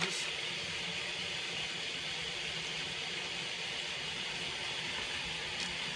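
Steady rain falling, a constant even hiss, with a faint click near the end.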